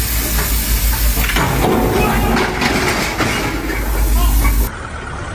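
Hydraulic excavator running as it lifts a mini excavator: a loud, steady mechanical hiss over a deep rumble. About four and a half seconds in, the sound drops abruptly to a quieter, duller noise.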